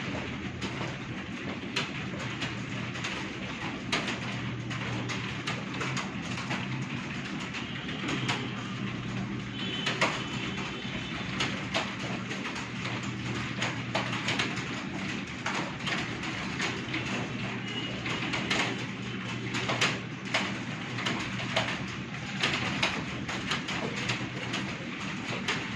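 Many computer keyboards clacking at once, a dense irregular patter of key strokes from a roomful of people typing a timed test. A steady low hum runs underneath.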